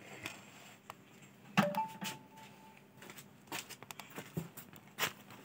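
Quiet room tone with scattered light clicks and knocks of objects being handled on a table, the loudest about a second and a half in, followed by a brief steady tone lasting about a second.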